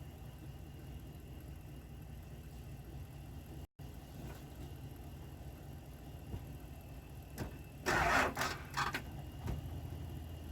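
Engine idling steadily in the background, with a brief loud noise lasting about a second, followed by a few shorter ones, about eight seconds in.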